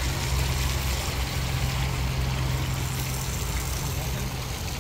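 A steady low hum of a running motor under an even hiss, with no sharp sounds.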